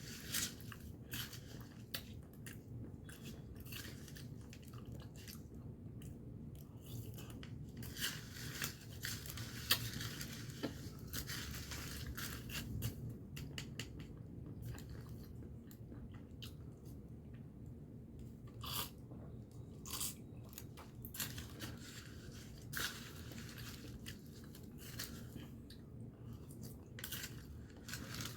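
A person chewing and crunching a mouthful of banana con yelo, sweetened banana with shaved ice. Short, irregular crunches and clicks go on throughout.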